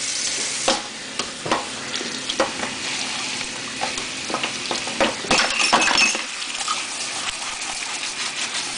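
Water from a commercial-style spring kitchen faucet running steadily into a metal colander as vegetables are rinsed, with scattered clinks and knocks against the metal.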